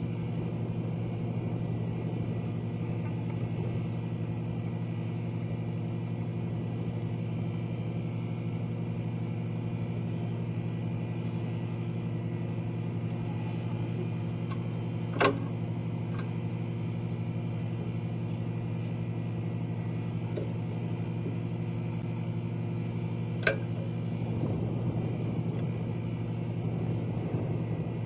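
Steady low drone of an engine running nearby, with two sharp metallic clinks of tools being worked on the truck, about fifteen seconds in and again near twenty-three seconds.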